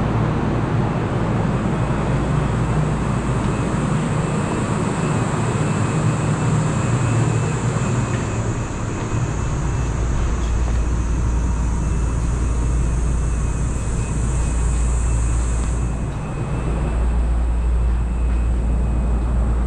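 Steady hum and hiss of a Shonan Monorail suspended monorail train standing in the station, with a deep low hum and a thin high tone running throughout; a high hiss drops away near the end.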